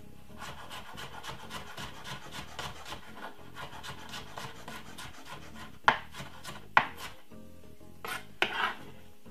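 Knife chopping spring onions on a cutting board: a quick, even run of light strokes, about four a second, then two louder sharp knocks about six and seven seconds in.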